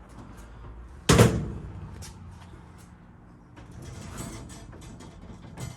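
Husky UltraHD steel cabinet door swung shut with a loud bang about a second in, followed by a latch click, then rattling and handling as another cabinet door is worked, ending in a sharp click.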